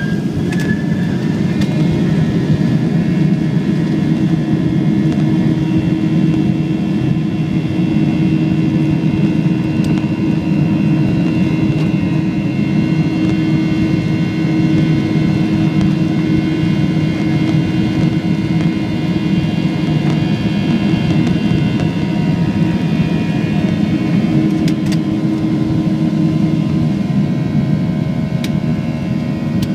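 Jet engines of a Boeing 737-700 spooling up with a rising whine, then running steadily at high power: a loud, even rumble under a high whine, heard from inside the cabin during the takeoff.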